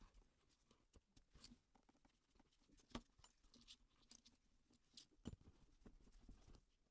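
Near silence with a few faint, scattered clicks and light rustles, the handling noise of someone working on a leather handbag.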